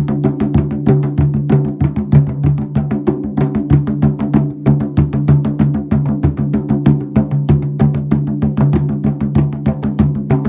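Drum music: rapid drum strikes, many a second, over a steady low droning tone.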